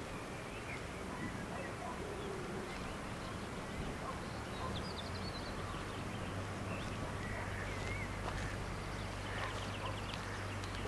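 Outdoor ambience: a steady hiss with a low hum under it and scattered faint bird chirps. Footsteps swish through tall grass near the end.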